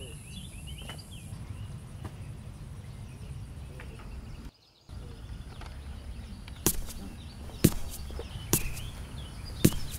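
Outdoor ambience with a steady low rumble and birds chirping. In the last third come four sharp footsteps on a paved road, about a second apart.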